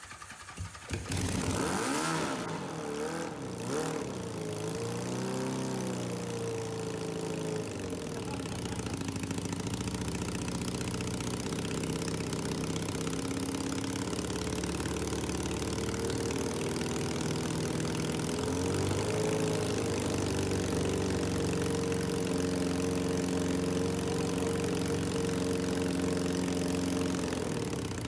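Honda CBX750 motorcycle engine firing up on starting fluid and running, revved up twice, once about five seconds in and again near twenty seconds, and otherwise idling steadily.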